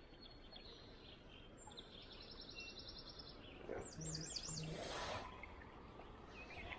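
Faint outdoor ambience with songbirds singing: a quick trill of repeated notes about two seconds in, then a few looping whistled notes just after four seconds. A short rush of noise, like a light splash, comes near five seconds.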